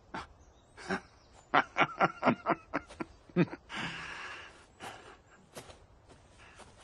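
A man laughing: a quick run of about eight short "ha" bursts over about two seconds.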